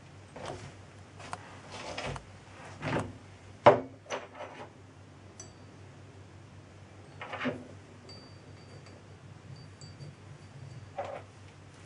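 Metal parts being handled on a workbench: scattered clinks and knocks as pieces are set on and fitted into a steel lathe chuck backplate, the loudest a little under four seconds in, over a faint steady hum.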